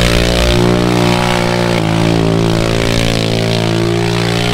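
ATV engine in a converted lawn tractor running hard at steady high revs as the mower spins donuts on gravel. Its pitch shifts slightly about two seconds in.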